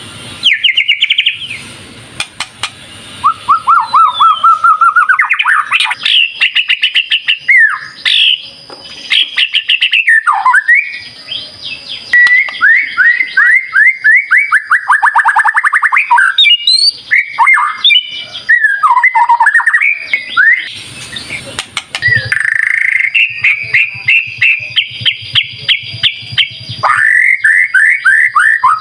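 White-rumped shama singing a loud, varied song: fast series of quickly repeated slurred notes and trills, broken by short whistled phrases and brief pauses.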